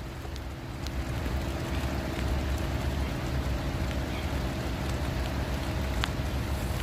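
Steady rain falling on the river's surface, over a low rumble, with a few sharp ticks scattered through it.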